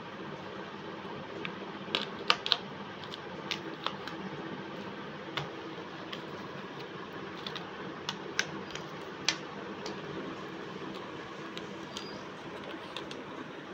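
Oil pastel sticks clicking and rattling in a plastic pastel tray as they are picked out and handled, a dozen or so sharp clicks, most of them in the first two-thirds, over a steady background hiss.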